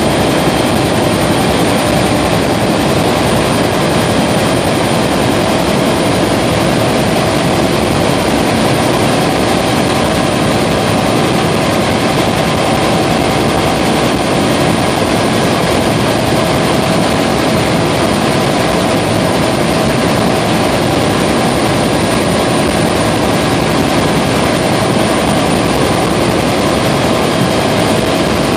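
Helicopter in flight heard from inside the cabin: a loud, steady drone of rotor and engine with a thin, constant whine on top.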